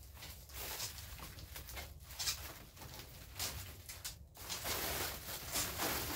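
A sheet of plastic bubble wrap rustling and crinkling as it is handled and pressed into place against a metal greenhouse frame. The crinkling is irregular and grows busier in the second half.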